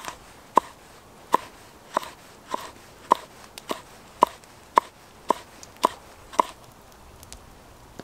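Kitchen knife chopping a red chilli on a thick wooden log-slice board: about a dozen evenly spaced knocks of the blade on the wood, roughly two a second, stopping about six and a half seconds in.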